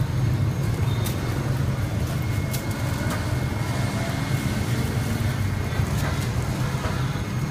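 A steady low rumble that swells a little, with a few faint clicks, while a red plastic hand fan is waved over a charcoal grill.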